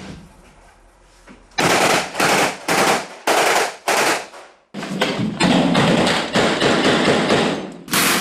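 Automatic gunfire in repeated bursts, starting about a second and a half in and coming almost without pause in the second half.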